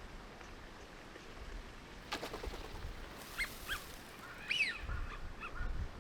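Eurasian wigeon calling: a few short whistled calls that rise and fall in pitch, starting about three seconds in, over low wind rumble on the microphone.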